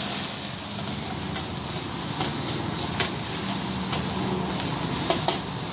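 Wok stir-frying over a high flame: a steady rush of fire and sizzling steam, with sharp clinks of the metal ladle striking the wok, one about three seconds in and two close together near the end.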